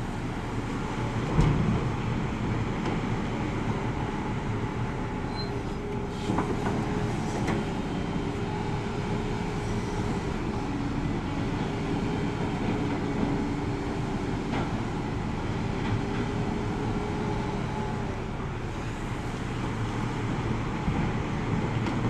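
Hidromek 390 excavator's diesel engine running steadily under working load, its pitch shifting a little as the hydraulics work, with one sharp knock about a second and a half in.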